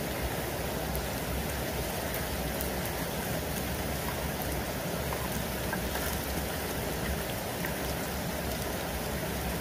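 Vegetable fritters frying in hot oil in a small pot, a steady sizzling hiss with small scattered crackles.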